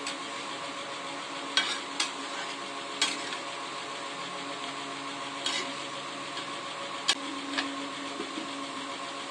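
Metal spatula stirring a simmering curry in a kadai, knocking and scraping against the pan several times, the sharpest knock a little after seven seconds, over a steady simmering sizzle.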